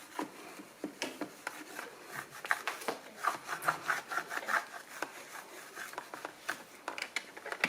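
Microfiber cloth rubbing and scrubbing over the hard plastic of a Dyson V6 vacuum part, in short irregular strokes a few times a second, with one sharper knock at the very end.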